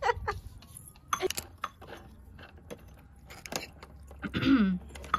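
A small metal spoon clinking and scraping against miniature steel cooking pots, in a few scattered light clinks.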